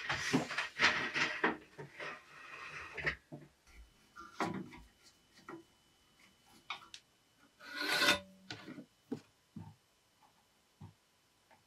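Wooden boards rubbing and scraping as they are handled, then scattered knocks and clicks of wood and tools, with a second short scrape about eight seconds in.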